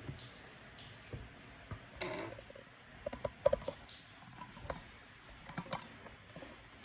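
Scattered clicks and taps on a MacBook Pro's keyboard as the laptop is handled and switched on, with a quick run of clicks about three and a half seconds in.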